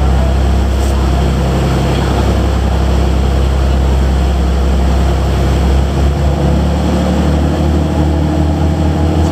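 Boat engine running steadily under way, with water noise along the hull. About six seconds in the engine note changes and takes on a regular throb.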